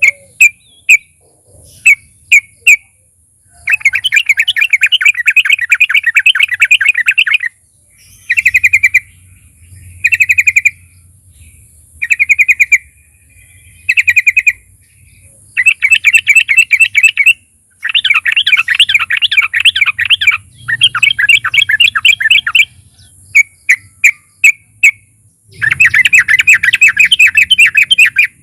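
Yellow-vented bulbul (trucukan) singing loudly: runs of fast bubbling trilled phrases lasting a second or several, broken by short single chirps and brief pauses.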